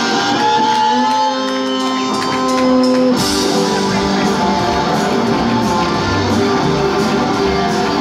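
A live rock band playing, with electric guitars. For about three seconds held notes ring out with no drums, then the drums, bass and full band come in together.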